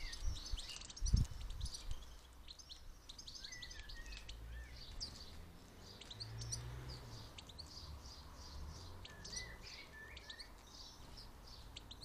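European goldfinches twittering and chirping, a steady stream of quick high tinkling notes with a few lower warbled phrases. A low thump about a second in.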